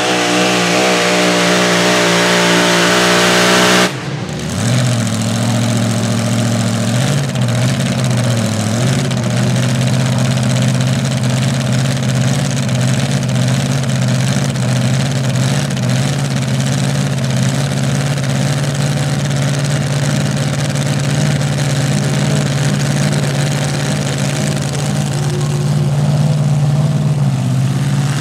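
A pulling competitor's engine running hard at high revs, cut off abruptly about four seconds in. An engine then idles at low, steady revs, its pitch wavering for a few seconds before settling.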